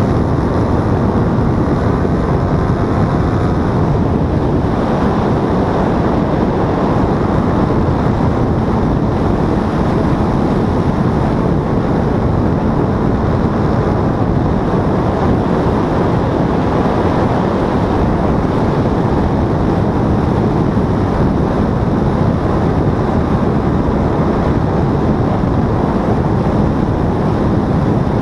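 Paramotor engine and propeller running steadily in flight, heavily masked by loud wind rushing over the microphone.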